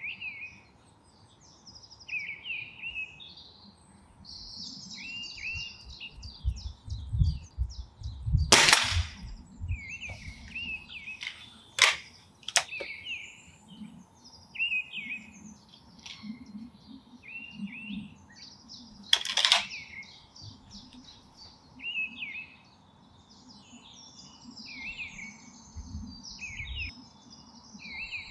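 BSA GRT Lightning XL SE gas-ram break-barrel air rifle firing twice, each a sharp crack, about ten seconds apart; two fainter sharp clicks come a few seconds after the first shot. Birds chirp and sing throughout.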